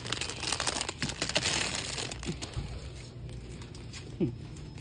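Plastic packaging crinkling as it is handled, densest for the first two seconds or so, then fading to a lighter rustle.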